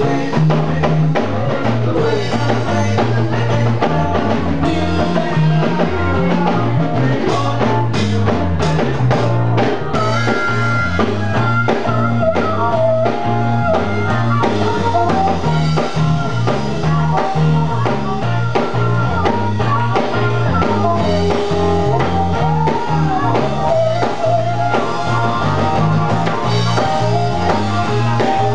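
Blues band playing live: electric guitar, bass guitar and drum kit, with a harmonica played cupped against the vocal microphone.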